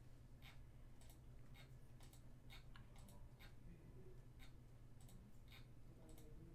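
Faint computer mouse clicks, roughly two a second, as a button is clicked over and over, over a low steady room hum.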